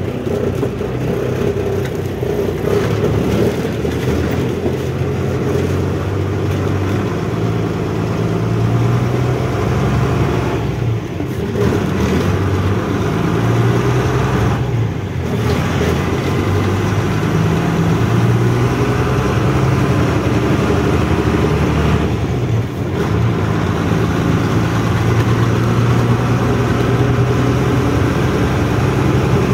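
A heavy truck's diesel engine running under way, heard from inside the cab, its pitch rising and falling with engine speed, with brief breaks about 11, 15 and 22 seconds in.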